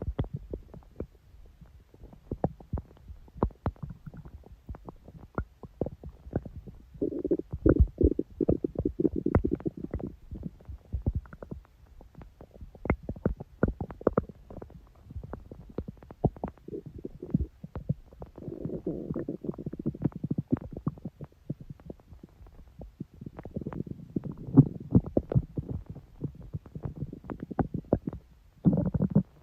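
Human stomach growling and gurgling: a constant patter of small pops and gurgles, broken by three longer low rumbles of a few seconds each and a short one near the end.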